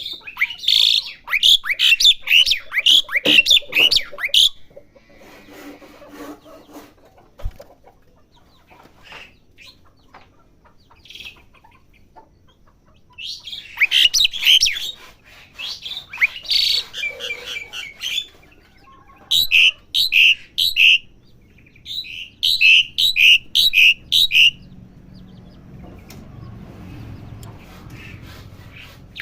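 Asian pied starling singing as it practises its song: bursts of quick chirps and whistled notes, pausing for several seconds, then two runs of evenly repeated sharp notes.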